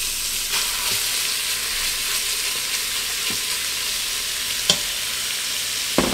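Cubed raw chicken sizzling in melted butter in an Instant Pot's stainless steel inner pot on the sauté setting: the cold chicken sticking to the hot pot. A silicone spatula scrapes and taps against the pot as the pieces are spread, with one brighter tap near the end.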